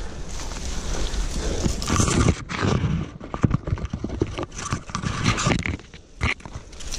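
Clothing and limbs scraping and rubbing against tree bark while a man climbs along a trunk, with leaves and branches rustling and irregular knocks and rubbing on a body-worn camera.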